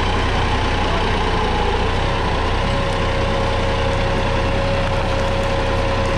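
Massey Ferguson 9500 tractor's diesel engine running steadily under load while pulling a three-bottom mouldboard plough through the soil. The engine note dips slightly about two seconds in, then holds even.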